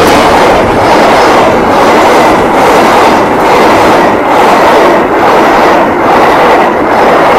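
Train passing at close range on the tracks: loud and steady, with a regular clatter of the wheels about once a second.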